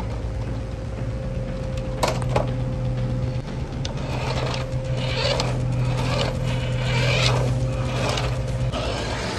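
Small electric motor and plastic gearbox of a 1:12-scale RC Toyota Hilux toy pickup driving on a concrete floor, in several short surges from about four seconds in. A steady low hum runs under it and cuts off near the end; two sharp clicks sound about two seconds in.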